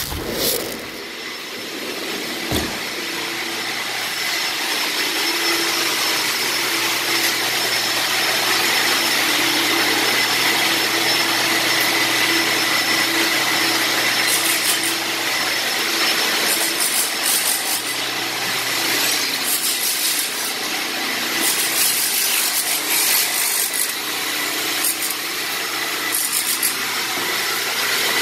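Large HEPA dust-extractor vacuums running with a steady whine, over the harsher noise of power tools chipping up floor tile, which comes and goes in bursts. The din grows louder over the first few seconds and then stays loud.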